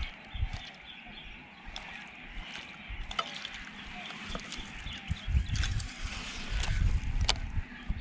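Water sloshing and lapping near a small boat over a steady background chorus of birds. Low thumps and knocks come in between about five and seven and a half seconds in, the loudest part, with one sharp click near the end.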